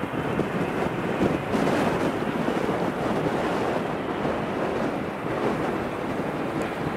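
Airbus A380 airliner landing: a steady rushing jet roar from its four engines, mixed with wind buffeting the microphone.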